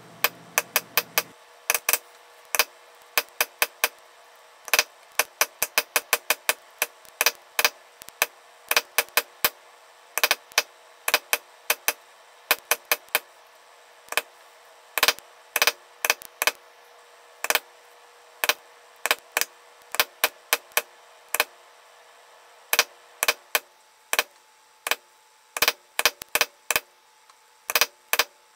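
A mallet striking a metal leather-stamping tool held on tooling leather laid on a granite slab: sharp taps in quick irregular runs of two to five, with short pauses between runs. The tool is stamping down the leather between the strands of a carved knot design.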